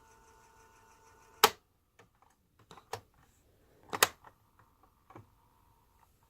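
Mechanical push-keys of a Magnavox D7160 radio cassette recorder clicking as they are pressed, with a sharp click about a second and a half in and another loud one about four seconds in, and several fainter clicks between. A faint steady whine stops at the first loud click.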